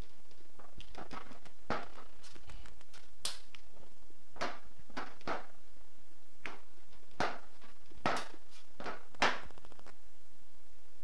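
Irregular light knocks and taps on a stainless steel worktop as bread-roll dough is pressed and shaped by hand and a metal rolling pin is picked up and set down, the two loudest knocks near the end.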